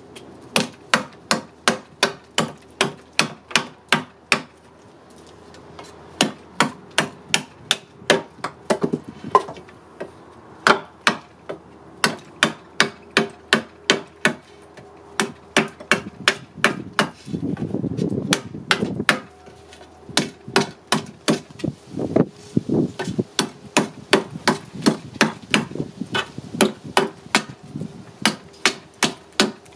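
Nessmuk-pattern knife chopping into the end of a wooden stick: sharp wooden chops about two to three a second, with a short pause about four seconds in and a couple of seconds of dull noise about two-thirds through.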